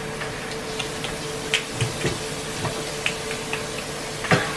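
Flour-dredged fish fillets frying in oil in a skillet: a steady sizzle with scattered crackles and a few louder pops near the end, over a steady hum.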